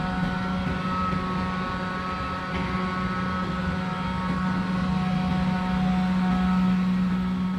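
Steady hum of a powered-up Mazak Smart 530C vertical machining center at its open electrical cabinet of servo drives and contactors: a low drone with several higher held tones over it.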